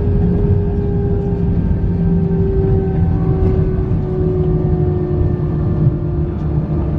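Airbus A320 cabin noise over the wing while the airliner slows on the runway after landing: a steady low rumble with a whine from the engines that slowly falls in pitch as they spool down.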